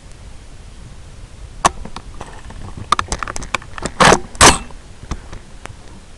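Rifle and scope handling noise picked up close to the microphone: scattered sharp clicks and knocks, with two loud short bursts about four seconds in, over a steady hiss.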